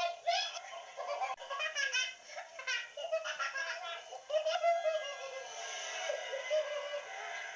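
A toddler giggling and squealing in a high voice while a dog plays over them.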